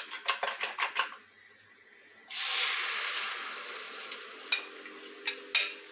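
A fork beating eggs against a glass bowl in quick clicks; then, about two seconds in, a sudden loud sizzle as the beaten egg mixture hits the hot oil in the frying pan, slowly dying down, with a few clinks of the fork on the bowl near the end.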